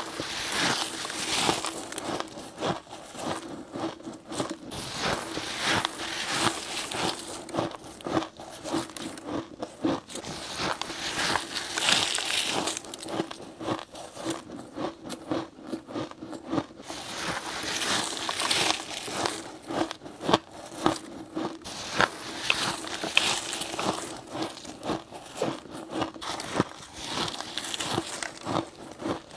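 Crushed ice crunching as it is bitten off in mouthfuls: dense runs of crisp crackles that swell and ease every second or two with each bite.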